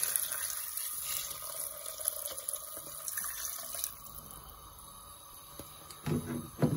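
Water poured from a jug into an aluminium cooking pot, splashing over sliced onions and tomatoes for about four seconds before it stops. A brief voice-like sound near the end is the loudest moment.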